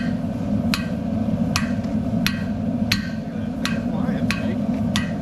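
Blacksmith's hammer striking hot iron on an anvil, seven even blows about one every 0.7 seconds, each with a short metallic ring. A steady low rumble runs underneath.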